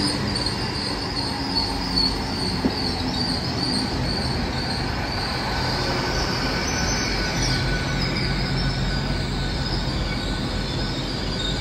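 Great Western Railway Hitachi Intercity Express Train moving along a curved platform, its wheels squealing in a high, wavering tone that fades out near the end, over a low rumble.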